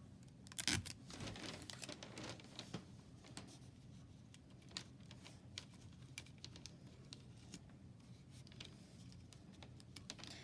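A piece of tape torn off, loudest about a second in, then faint crinkling and small clicks as the tape is pressed over plastic straws on a craft stick.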